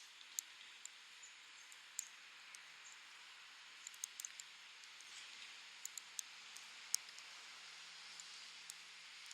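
Metal knitting needles clicking together at an irregular pace, sharp little clicks over a faint steady hiss.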